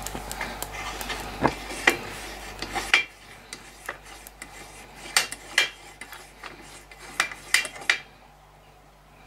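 Metal clicking and rubbing as a hand works the fittings of a brass primus stove while it is being brought up to pressure for lighting. It is busier in the first three seconds, then a handful of separate sharp clicks follow.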